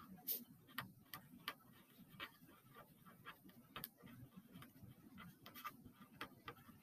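Faint scratches and taps of a felt-tip marker writing on paper, an irregular run of short strokes.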